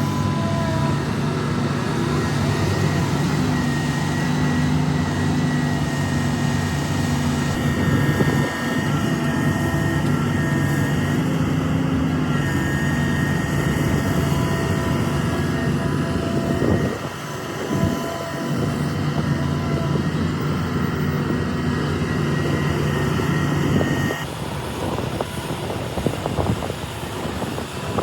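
Heavy earthmoving machinery working: diesel engines of an excavator, bulldozer or dump truck running steadily under load, with a high thin squeal over the engine. The sound changes abruptly twice, about a third of the way in and near the end.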